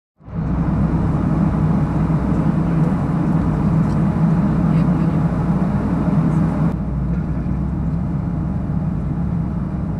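Steady in-flight cabin noise of a Boeing 737-800 from a window seat over the wing: a low drone from its CFM56-7B engines under the rush of airflow, at the start of the descent. It cuts in suddenly just after the start, and the higher hiss drops away abruptly about two-thirds of the way through.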